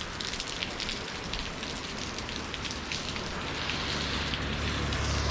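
Heavy rain pouring down, a steady hiss with individual drips ticking through it. A low rumble builds in the last couple of seconds.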